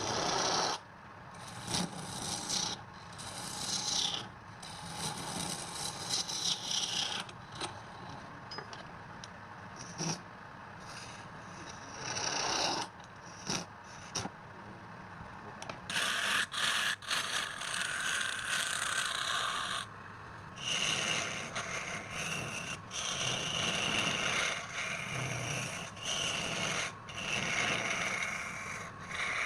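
Wood spinning on a lathe being scraped by a tool in a series of passes, with short breaks between them.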